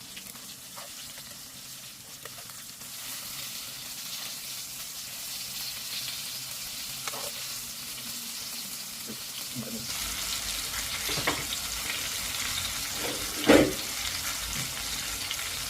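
Chicken cutlets sizzling as they fry, the sizzle growing louder about ten seconds in. A few sharp knocks are heard over it, the loudest about two seconds before the end.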